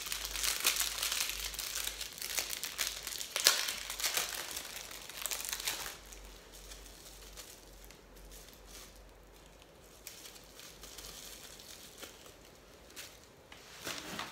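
Jewelry packaging being crinkled by hand as a set of earrings is unwrapped, with a sharp crackle about three and a half seconds in. After about six seconds it drops to faint handling with a few small clicks.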